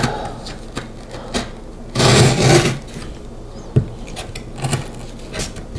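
A closed folding knife pressed and dragged against corrugated cardboard, the hand straining on its Sugru-coated grip: low rubbing with one rough scrape about two seconds in and a few light knocks.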